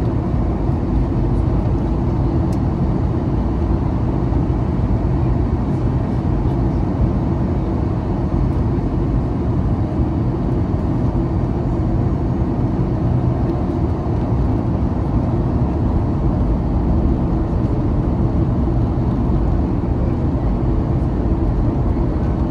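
Steady cabin noise inside a Boeing 737-800 in flight, heard from a forward window seat: an even rush of airflow over the fuselage mixed with the low drone of its CFM56-7B engines, heaviest in the low range and unchanging.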